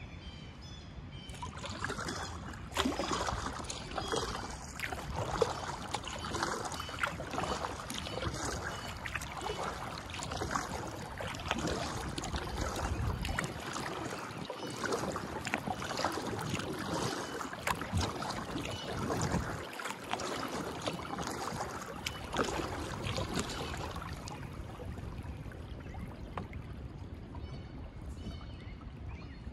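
Kayak paddle strokes in calm canal water: the blades dip, splash and drip in a steady run of strokes. It starts about a second and a half in and eases off near the end.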